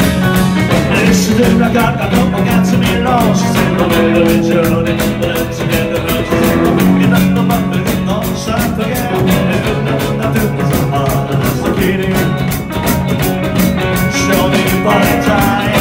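Live rock and roll band playing: a male singer over acoustic guitar, hollow-body electric guitar, upright bass and drums, with a fast, steady beat.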